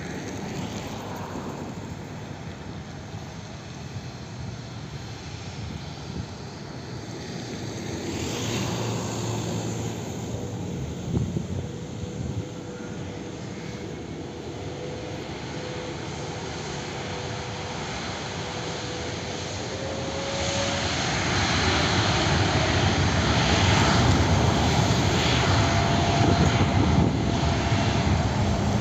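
Boeing 787 airliner's jet engines running as it lines up and spools up for takeoff: a steady rumble with a thin whine that climbs slowly in pitch, growing clearly louder over the last third.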